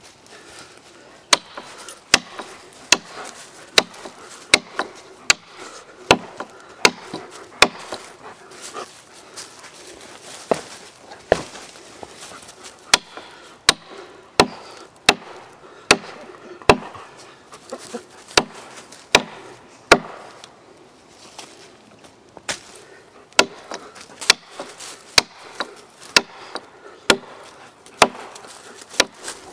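Gransfors Bruks Mini Hatchet chopping into a six-inch log: sharp, evenly paced blade strikes into the wood, roughly one every three-quarters of a second, with two brief pauses.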